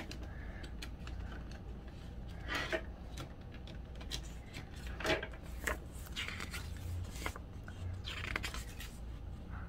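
A plastic CD jewel case and its paper booklet being handled: scattered light scrapes, clicks and rustles, with a faint steady low hum underneath.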